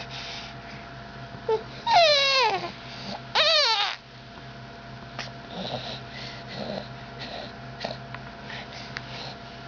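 A baby making noises: two loud cries about two and three and a half seconds in, the first sliding down in pitch, the second rising then falling, followed by quieter small sounds.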